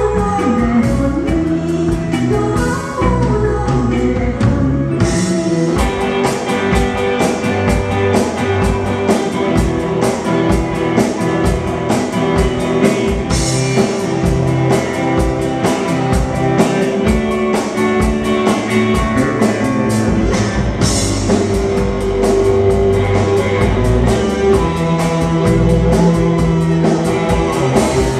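Live band playing Lao lamvong dance music: electric guitar and bass over a drum kit keeping a fast, even beat, with a cymbal crash about every eight seconds.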